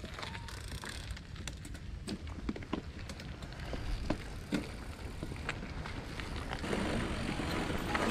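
E-mountain bike rolling along a dirt trail: a low rumble from the tyres with scattered clicks and rattles, and a rushing noise that builds near the end.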